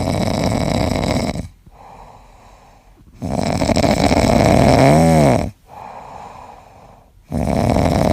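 A sleeping pet snoring loudly: three long rasping snores about four seconds apart, with quieter breaths between them. The middle snore carries a squeaky whistle that rises and falls.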